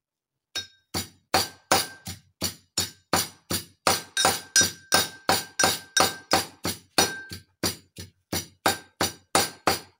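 Steel pestle pounding ginger, garlic and green chillies in a steel mortar: steady strikes about three a second, each with a short metallic ring.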